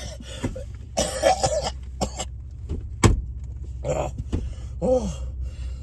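A man coughing in several short bursts inside a car, with one sharp knock about three seconds in, over a steady low rumble from the car.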